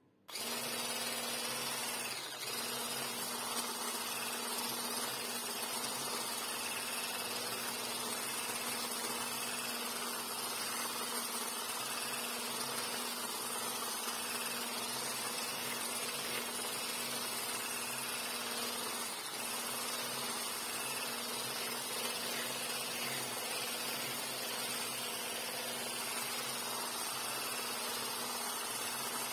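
Electric whisk running steadily at speed in a stainless steel bowl, whipping a frozen ice cream mixture to make it fluffy; a steady motor hum, starting a split second in, with two brief dips.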